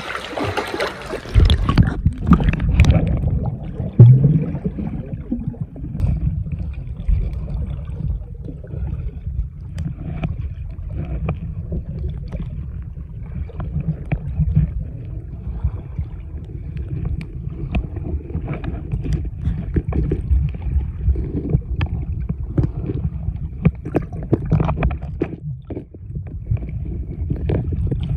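Water heard through a camera held under water: a muffled low rumble of moving water with scattered clicks and knocks. About a second in, the brighter above-water splashing cuts off as the camera goes under the surface.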